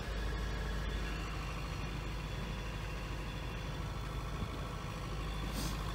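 Sailboat's inboard engine running steadily, a low even hum.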